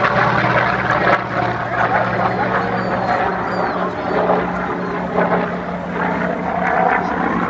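Propeller airplane engine running steadily as the aircraft flies a display pass, a continuous drone with a broad rush of noise over it.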